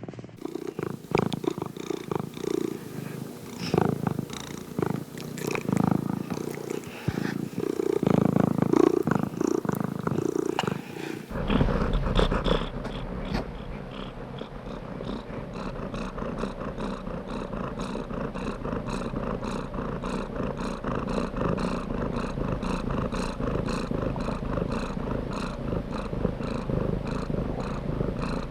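Domestic cat purring close to the microphone. About eleven seconds in, the sound changes abruptly from an uneven purr to a steadier, evenly pulsing one with a deeper low end.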